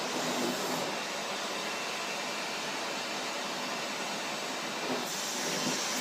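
Vacuum cleaner running steadily while being used to vacuum a cat's fur, its hiss brightening for a moment about five seconds in.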